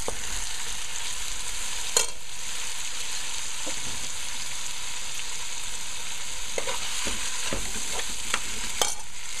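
Curry masala paste frying in oil in a metal pot with a steady sizzle as chunks of beef are stirred in. A metal spoon clinks and scrapes against the pot, loudest about two seconds in and again near the end.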